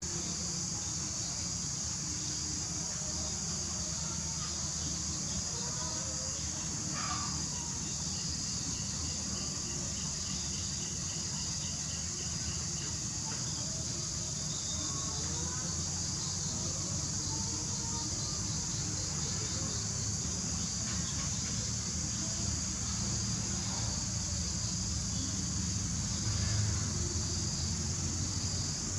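Steady, high-pitched insect chorus droning without a break, over a low rumble, with occasional short bird calls scattered through it.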